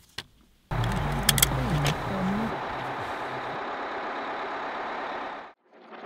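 A motor vehicle driving: steady engine and road noise that starts abruptly about a second in, with a few sharp clicks soon after, and cuts off suddenly near the end.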